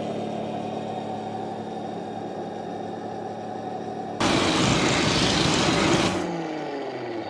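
RC Tiger tank model's simulated engine sound running steadily. About four seconds in, a sudden loud rushing blast lasts roughly two seconds, and then the sound winds down in falling tones.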